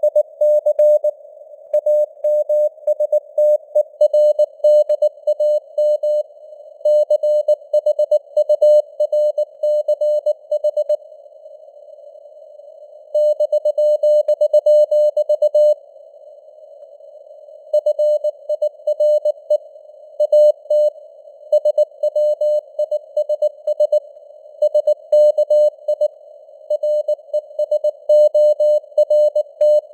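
Morse code (CW) keyed at about 19 words per minute as a single tone near 600 Hz, over a faint hiss of simulated radio noise, with the signal strength fading up and down (QSB). The keying pauses twice, about 11 and 16 seconds in, leaving only the noise.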